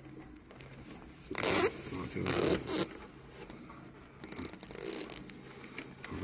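Short rustling, scraping strokes as hands handle ribbon cables and wiring inside a plastic display console housing. Two louder strokes come about a second and a half and two and a half seconds in, and a fainter one near the end.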